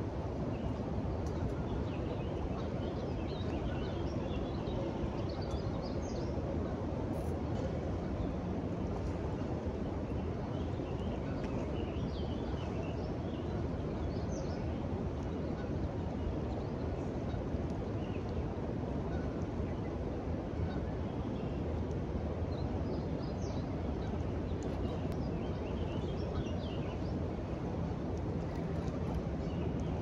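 Steady rushing of river rapids, with birds chirping faintly now and then.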